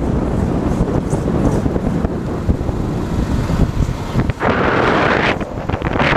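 Wind buffeting the microphone on a moving car, over road and tyre rumble. About four seconds in it changes to a brighter, hissier rush.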